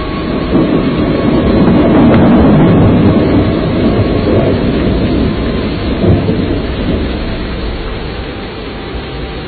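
A long roll of thunder in a heavy storm, swelling over the first two seconds and fading slowly over the next several, over steady rain.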